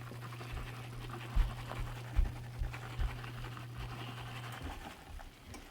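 A dog panting, with a few soft low thumps, over a steady low hum that stops near the end.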